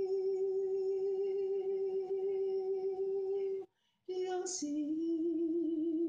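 A woman's voice singing long held notes. The first note breaks off for a short breath a little after halfway; the next starts with a brief sharp onset, a little lower in pitch, and rises slightly.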